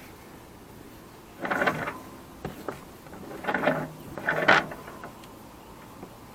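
Three short bursts of rustling and scraping, typical of sailing rope being pulled and handled, with a few light clicks between them.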